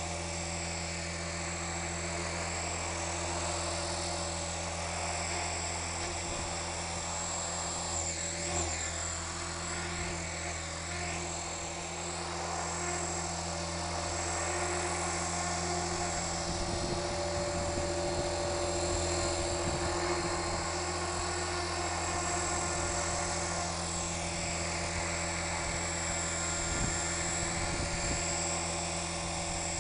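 Electric Rave 450 RC helicopter hovering: a steady low buzz from the rotor blades, with a high motor-and-gear whine that rises and falls a little as the throttle and position change. It gets slightly louder about halfway through.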